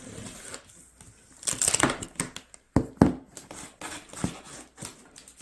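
Cardboard box and packaging being opened and handled: irregular rustling and crinkling, with a few sharp knocks and clicks.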